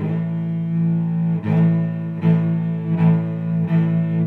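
Channel intro music: low sustained notes in a bowed-string sound, changing about every three-quarters of a second.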